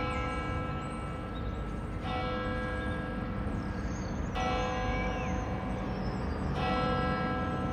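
A single church bell tolling slowly, struck about every two seconds, each stroke ringing on into the next, over a steady low rumble.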